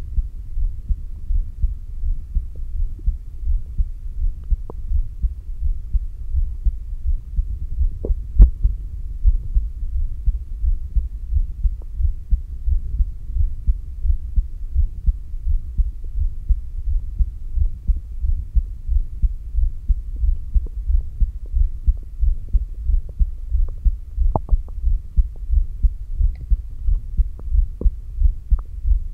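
Heartbeat heard through a stethoscope placed on the heart's apex: a steady, even rhythm of low, muffled thumps over a low hum. A sharp click cuts in once about eight seconds in.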